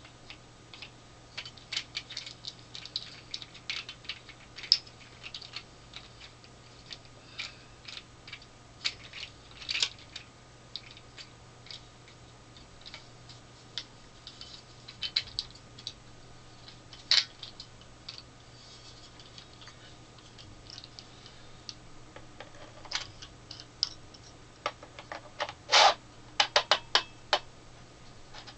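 Small hard plastic parts of a portable LCD TV and its accessories being handled and fitted: irregular clicks, snaps and light rattles. A quick run of louder clicks comes near the end, as the TV's plastic housing is worked.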